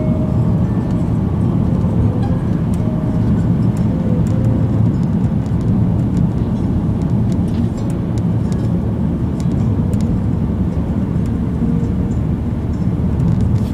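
Steady low rumble of a car's road and engine noise heard from inside the cabin while driving at speed.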